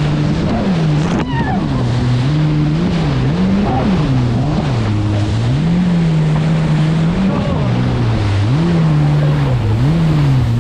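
Jet ski engine running under way, its pitch rising and falling again and again as the throttle is opened and eased, over a steady rush of water and wind noise.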